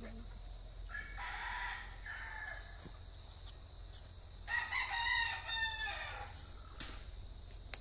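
Rooster crowing twice: a fainter crow about a second in, then a louder, longer crow from about four and a half seconds in that drops in pitch at its end.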